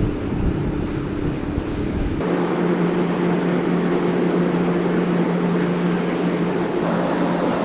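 Wind buffeting the microphone with a low rumble for about two seconds. Then an abrupt change to the large car ferry's steady low machinery hum over an even rushing of air and water, heard from its open deck as it moves alongside the quay.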